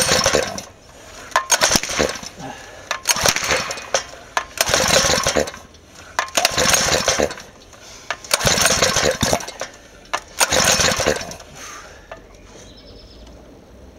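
Small OHV four-stroke engine being pull-started again and again on hydrogen-oxygen gas: about seven pulls roughly every two seconds, each a short burst of cranking, which stop near the end. The engine runs badly, which the owner puts down to ignition timing not yet retarded for hydrogen.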